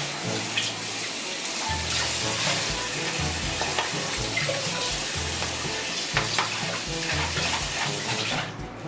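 Steady hissing as blended sauce is pressed with a wooden spoon through a mesh strainer into a pan on the stove. Background music with a low, even bass pattern plays underneath. The hiss cuts off abruptly near the end.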